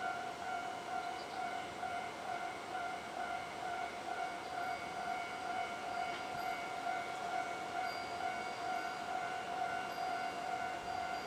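Railway level-crossing alarm ringing steadily, its electronic bell tone running continuously over the even rushing noise of the passing train.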